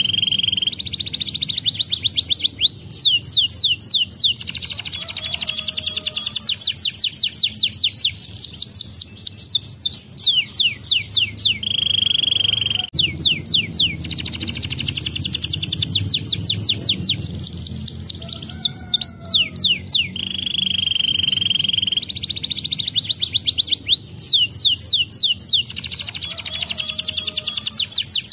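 Domestic canary singing a long continuous song of fast trills and rolls. The trills are broken every so often by a steady held whistle that recurs a few times.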